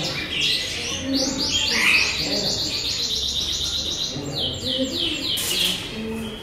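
Bird chirping: long runs of high, quickly repeated falling chirps, several a second.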